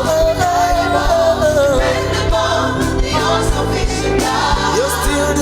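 Gospel worship music: voices singing a melody over a band with a steady beat.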